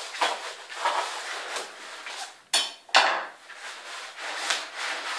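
A roll-up banner being wound by hand onto its spindle: repeated rustling and rubbing strokes, with two sharp knocks about halfway through.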